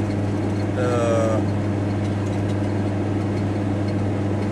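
Volkswagen T4 Transporter van's engine running with a steady low drone, heard from inside the cab.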